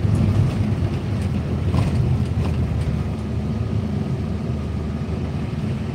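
Steady low rumble of a car's engine and tyres heard from inside the cabin while driving along at an even pace.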